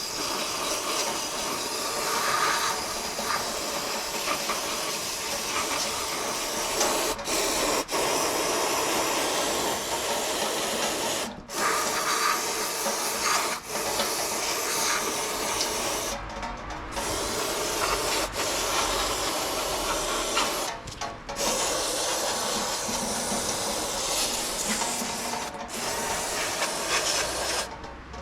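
Aerosol parts cleaner spraying in long bursts, with several brief breaks between them.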